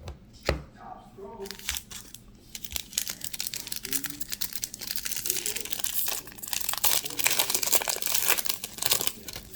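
Plastic trading-card pack wrapper being torn open and crinkled by hand, a dense crackling that builds over the last several seconds.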